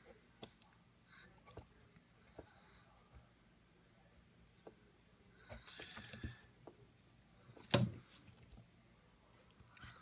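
Faint pen-on-paper writing sounds in a notebook: light scratching and small taps and clicks, with a brief scratchy rustle about six seconds in and one sharp knock a little before eight seconds in, the loudest sound.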